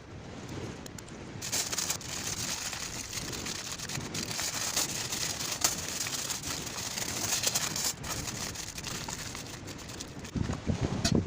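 Rain falling hard, a dense patter that comes on about a second and a half in and eases off after several seconds, with low thumps near the end.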